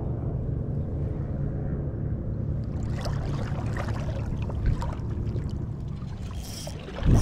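A boat's motor running steadily at low revs, an even low hum, with a few small knocks and clicks over it. Right at the end a louder rushing noise comes in suddenly.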